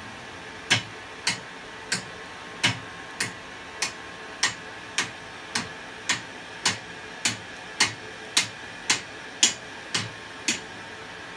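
Hand hammer striking a strip of red-hot thin steel laid on the steel frame of a brake drum forge: about eighteen even blows, a little under two a second, starting about a second in, bending the hot metal.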